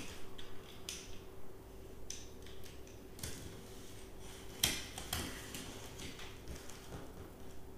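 Packing tape on a cardboard box being slit with a hand-held cutter: short scrapes and rustles of blade, tape and cardboard, with a sharp click about four and a half seconds in.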